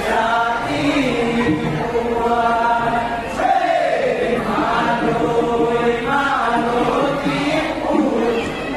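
Several voices singing a Bihu folk song together in long, drawn-out phrases whose held notes bend up and down.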